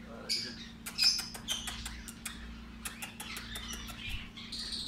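Lorikeet chirping and chattering in quick, short high calls with sharp clicks, over a steady low hum.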